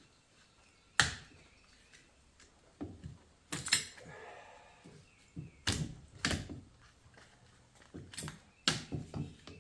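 Irregular sharp clicks and knocks of metal transmission parts and hand tools being handled, with a brief scrape near the middle, while a wiring harness is worked loose from an automatic transmission's valve body.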